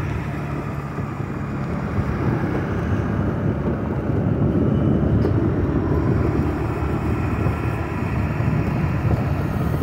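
Steady engine and road noise from the moving vehicle carrying the camera as it drives along a paved street, with a low hum under it.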